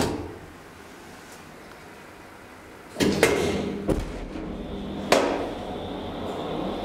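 A DEVE hydraulic elevator: a click as the down button on the car panel is pressed, then about three seconds later a loud clunk and rattle as the lift starts, a thud, and a sharp clack a little later. A steady low hum runs under it as the car begins to move down.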